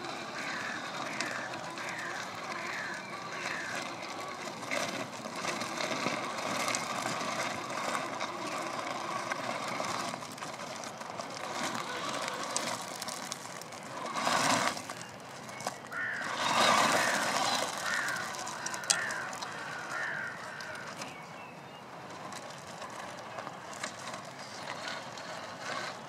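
A 1/8-scale Absima CR1.8 RC crawler's motor and drivetrain running as it climbs a gravel pile, its tyres crunching over loose stones. About halfway through there are two louder rushes of noise.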